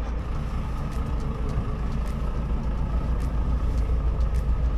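An engine running steadily with a low, unbroken drone.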